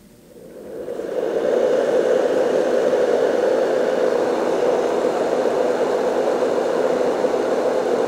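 Marpac Dohm DS fan-based white noise machine switched on at its low speed: the fan spins up over the first second or so, then gives a steady, even rush of air.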